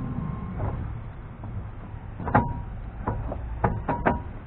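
A handful of sharp clicks and light taps, about five of them in the second half, from parts being handled at the front wheel hub. Under them is a steady low rumble.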